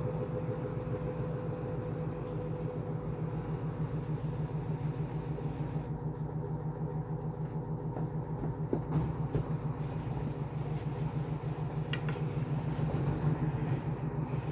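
Washing machine in its spin cycle: the drum spinning at high speed, a steady rumbling hum with a fast, even pulsing.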